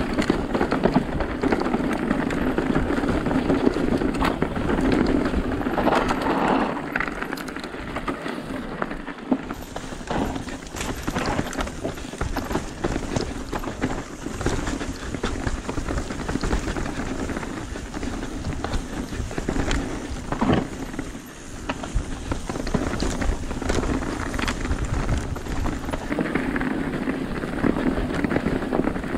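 Mountain bike descending a rough, stony dirt trail at speed: tyres crunching and rattling over rocks and frozen ground, with frequent sharp knocks and clatter from the bike over a steady rushing noise.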